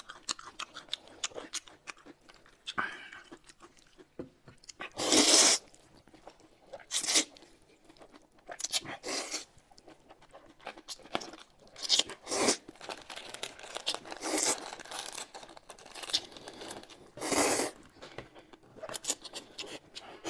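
Close-up eating sounds: steady chewing with small clicks of chopsticks and spoon, broken by several loud slurps as noodles and spoonfuls of soup are sucked in.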